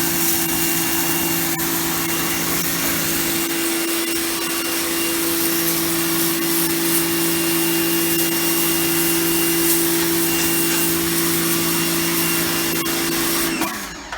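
Titan TTB66PRW electric pressure washer running, its motor humming steadily under the loud hiss of the water jet, then cutting off near the end.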